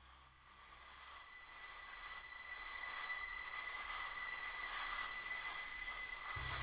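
A rising hissing drone with a steady high whistle running through it swells louder and louder, a sound-design riser in a film score. A deep rumble comes in just before the end.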